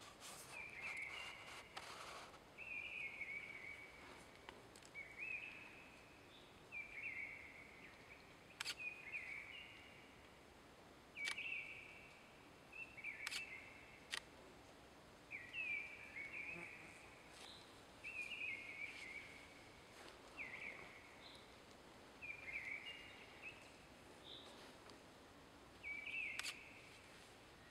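A small songbird singing the same short, down-stepping phrase over and over, about every two seconds. A few sharp single clicks from the camera's shutter fall in between.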